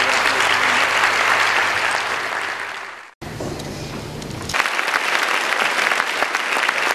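Audience applauding. The clapping fades away and cuts off briefly about three seconds in, then comes back and swells again.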